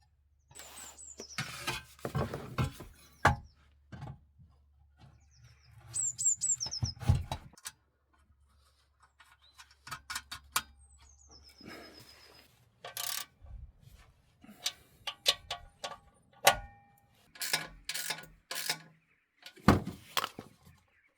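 Metal work on a car exhaust system: irregular clanks, knocks and clicks of parts and hand tools, with a few short high squeaks.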